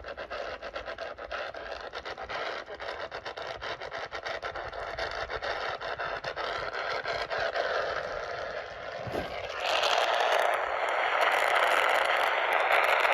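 Radio receiver static with no signal: a crackling hiss full of rapid clicks that turns into a louder, steadier hiss about ten seconds in.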